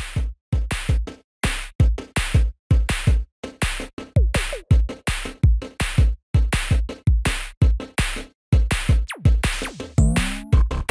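Electronic background music: a drum-machine beat with heavy kicks that stops and restarts in short breaks, with pitch sweeps about four seconds in and again near the end.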